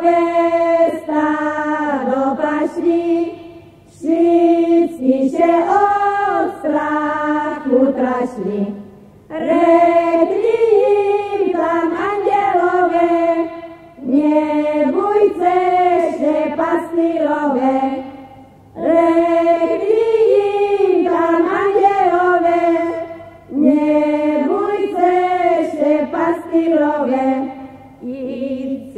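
A group of folk singers singing a Slovak Christmas carol (koleda), verse by verse in short phrases of a few seconds each, with brief breaks between them.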